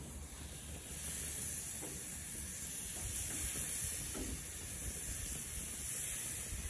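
Rabbit quarters sizzling as they sear on a hot grill. The steady hiss grows louder about a second in.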